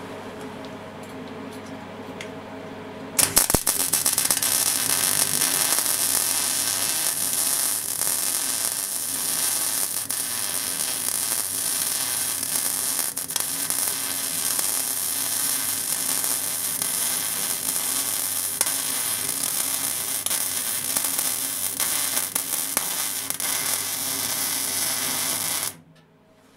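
Wire-feed (MIG) welder running one long continuous bead on steel: a low hum for about three seconds, then the arc strikes into a steady, loud crackle and hiss that stops suddenly near the end.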